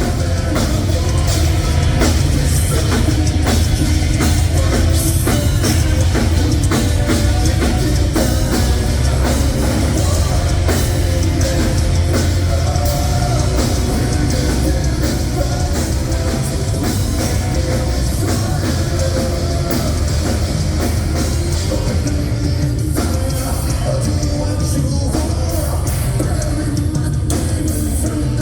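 Heavy metal band playing live and loud through a venue PA: distorted guitars and bass over a pounding drum kit.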